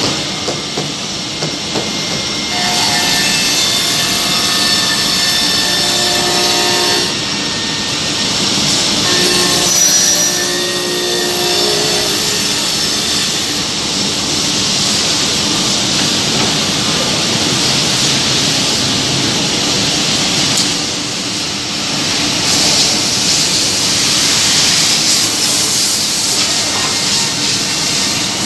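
Anderson PTP-5013 CNC boring machine at work drilling cam-lock holes in wood panels, with the steady noise of its spindles, head travel and dust extraction. A higher-pitched whine comes and goes twice in the first half.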